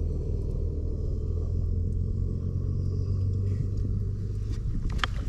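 Steady low rumble, with one sharp click about five seconds in.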